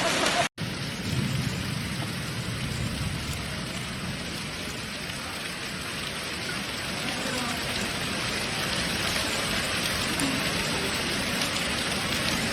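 Heavy rain pouring down in a steady hiss, with a brief cut to silence about half a second in.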